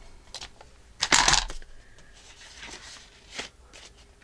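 Paper being handled: a short, loud rustle about a second in, then a few softer rustles and light taps.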